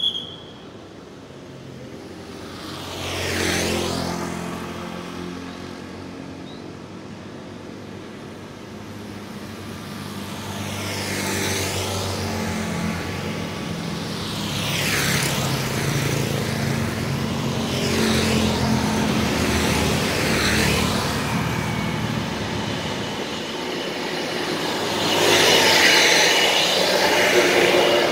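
Road traffic passing by one vehicle at a time: about six pass-bys of motorcycles and cars, each swelling and fading with engine and tyre noise. The loudest pass near the end is a box truck and a bus going by close.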